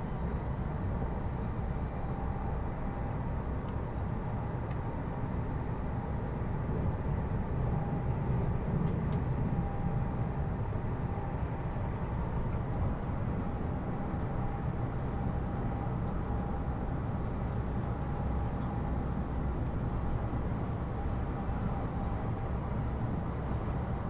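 Running noise inside an E259 series Narita Express car at speed: a steady low rumble of wheels on rail, with a faint steady high tone through the middle.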